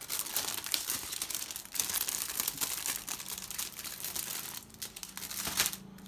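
Clear plastic bag crinkling and rustling as hands work it open around a plastic model-kit sprue, with a couple of brief pauses near the end.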